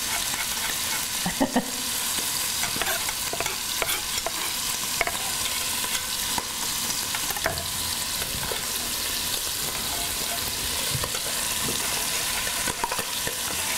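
Cubes of paneer cheese sizzling steadily as they fry in a pot, being turned. Scattered light clicks come from metal tongs against the pot and a knife mincing garlic on a wooden cutting board.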